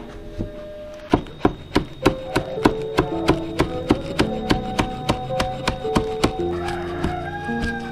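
Knife chopping on a cutting board in a steady rhythm, about three strokes a second, starting about a second in after a single stroke.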